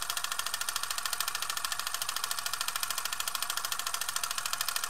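Film projector running: a steady, fast, even mechanical clatter.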